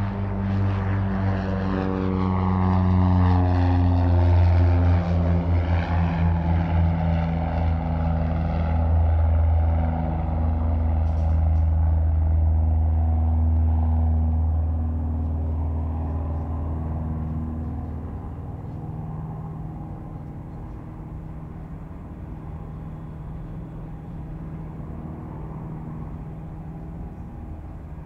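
Aircraft engine running, its pitch shifting over the first few seconds and then holding steady. Around two-thirds of the way through it fades to a quieter, steady drone.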